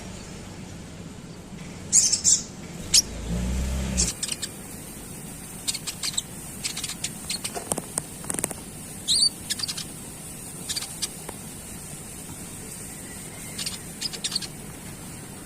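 Konin bird chattering: short, sharp high chirps and quick twitters at irregular intervals. A brief low hum sounds about three to four seconds in.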